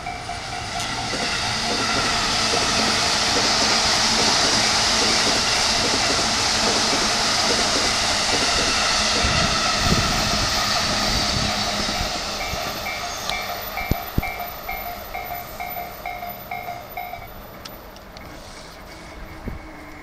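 JR East E233-series Keihin-Tohoku Line electric train passing close by, its rushing wheel and running noise building over the first two seconds and fading after about twelve seconds, with a couple of sharp clacks over the rails around fourteen seconds in. A Japanese level-crossing warning bell dings in an even pulse of about two a second at the start and again from about twelve seconds in, stopping near seventeen seconds.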